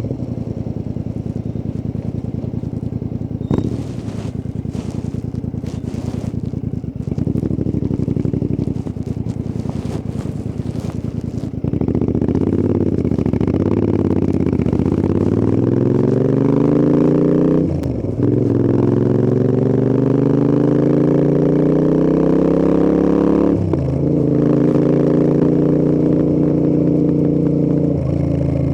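Royal Enfield Interceptor 650's 648 cc parallel-twin engine and exhausts on the move: a steady rumble at first, then about twelve seconds in the bike accelerates hard. The engine note climbs, drops briefly at two upshifts and climbs again.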